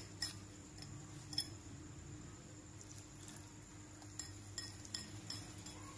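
Metal wire whisk clinking against the side of a glass bowl while beating a thick egg, flour and milk batter: a few light, spaced-out clinks.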